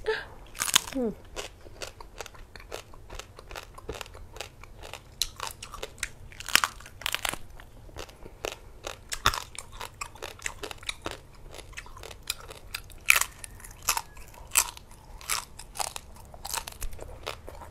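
Close-up crunching and chewing of crispy roast pork skin: many sharp, irregular crunches as it is bitten and chewed.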